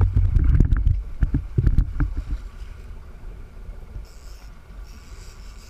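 Wind buffeting a body-worn camera's microphone on a sportfishing boat at sea, with a run of sharp knocks in the first couple of seconds. After that it settles into a quieter steady rush, with a faint high whir from about four seconds in.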